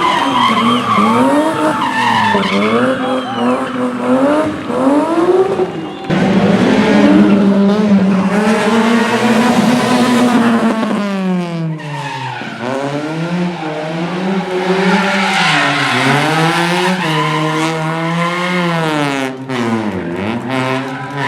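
Rally car engine driven hard, the revs rising and falling again and again as it shifts and brakes. About halfway through it is held high, drops sharply, then climbs back up through the gears, with tyres squealing.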